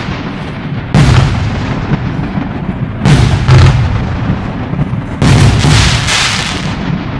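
'Taurus' aerial fireworks bursting overhead: three sharp bangs about two seconds apart, each trailed by a fading crackling hiss as the glittering stars burn out.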